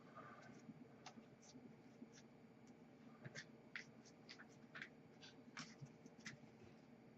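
Faint, scattered light clicks and soft rustles of Upper Deck hockey trading cards being flipped through and handled in a freshly opened pack.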